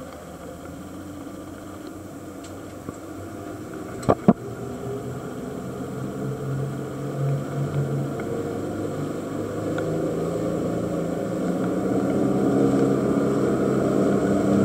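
Dive boat's outboard motor running and speeding up, its engine note growing steadily louder as the boat gets under way. Two sharp knocks about four seconds in.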